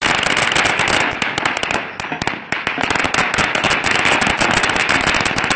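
Firecrackers going off on the ground in rapid succession, a dense run of sharp bangs and crackles with a brief dip about two seconds in.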